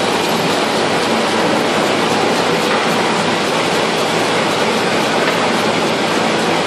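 Horizontal packaging machine running, a steady, even mechanical noise with a few faint ticks scattered through it.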